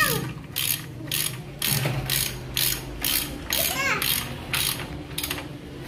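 Hand ratchet clicking in quick back-and-forth strokes, about two a second, as it tightens a screw holding a scooter's rear tire-hugger fender.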